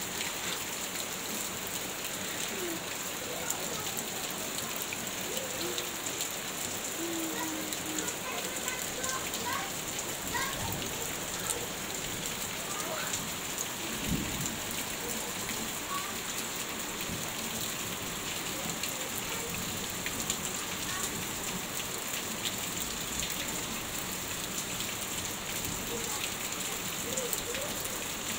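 Heavy rain falling steadily on roofs and ground, with water streaming off a roof edge. A brief low rumble about halfway through.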